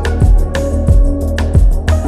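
Background music with a steady beat: deep thumping kicks, sharp percussive hits and held instrumental tones.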